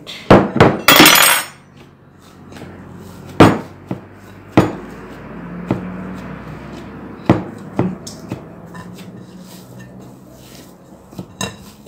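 A glass mixing bowl knocking and clinking as hands work risen bread dough inside it, with soft rustling between a handful of sharp knocks, the loudest cluster about a second in.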